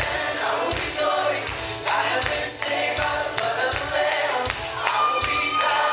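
Live worship band playing and singing: vocalists over guitars and keyboard, with regular percussion hits.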